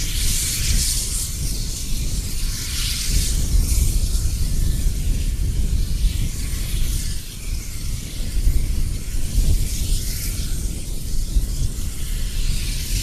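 SY class steam locomotive working slowly, with surges of hissing steam and exhaust that come and go over a steady low rumble.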